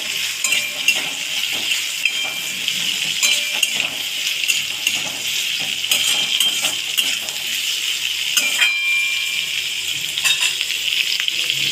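Chopped onion, green pepper and tomato sizzling steadily in hot oil in a metal wok, with a flat metal spatula scraping and clicking against the pan as the vegetables are stirred.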